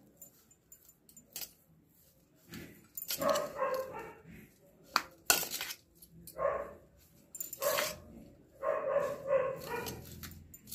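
A spoon clinking and scraping in a bowl as potato stuffing is mixed, with a few sharp clinks, the loudest about halfway. A dog barks in short bouts several times in the background.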